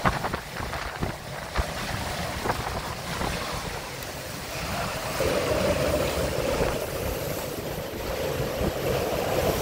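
Hurricane-force wind buffeting the microphone on a sailboat, over the rush of waves. A steadier howl joins about halfway through.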